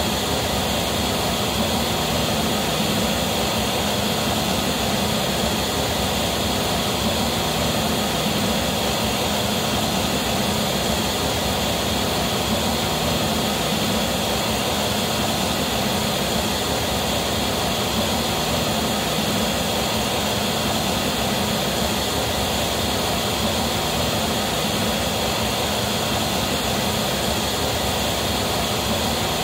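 Steady pink noise test signal played loud through the PA loudspeakers, unchanging throughout: the reference signal for a Smaart transfer-function measurement used to tune the system.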